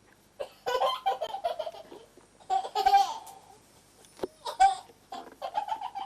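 A young child laughing in several short bursts.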